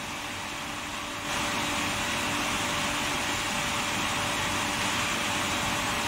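Induction tube-heating machine running: a steady machinery hum and hiss with a faint steady tone underneath. The hiss gets louder about a second in, then holds.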